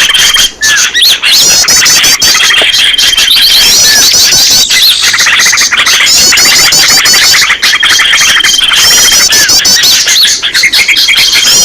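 Bird-lure recording of many small birds calling together: dense, loud high chirps and rapid trills. A thin steady whistle of about a second comes back every three to four seconds, and many sharp clicks run through it.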